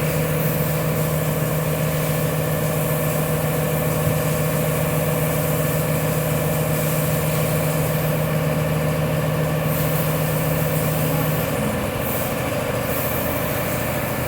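Wood CNC router's axis drive motors moving the gantry under manual jog control: a steady mechanical hum with a low tone that stops about three quarters of the way through, leaving a higher whine.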